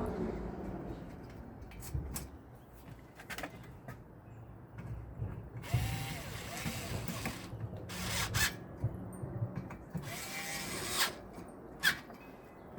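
Power drill running in three short bursts, a second or two each, its motor whine rising as it spins up, with a few sharp knocks of handling in between.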